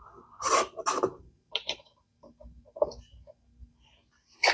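Short scrapes and small clicks of hands handling parts and tools at a workbench, with two louder scraping sounds in the first second or so.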